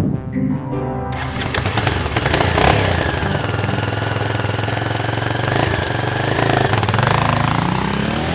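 Motorcycle engine starting and running with rapid firing pulses, coming in about a second in, as the bike rides off. Background music plays over it.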